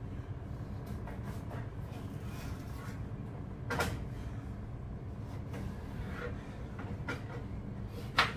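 A kitchen knife slicing a cucumber on a wooden cutting board: a few scattered knocks of the blade on the board, the clearest about four seconds in and just before the end, over a steady low hum.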